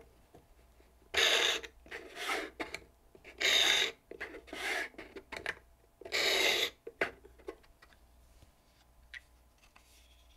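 A square high-speed-steel graver, held at an angle in a sharpening block, is swiped by hand across a stationary hone. There are three strong scraping strokes, each followed by a fainter one. This is the grinding of a parallel heel onto the tool.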